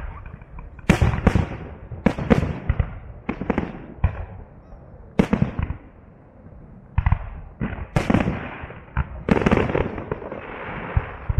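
Aerial fireworks shells bursting in a public salute: a dozen or more sharp booms at irregular intervals, some in quick pairs, each trailing off in an echo.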